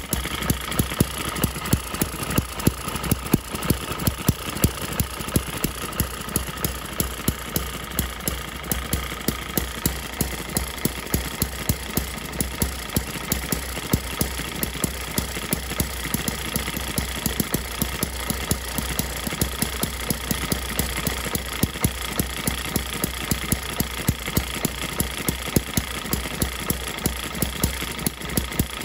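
ET6 model hit-and-miss engine running on its first start: a fast, even mechanical clatter with regular sharp beats from its firing and valve gear.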